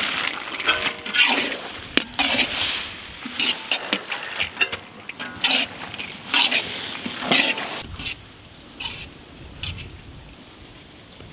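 A flat spatula stirs raw peanuts, sliced onions and dried chillies frying in oil in a large iron wok, a rattling scrape with each stroke. The strokes stop about eight seconds in, and it goes quieter.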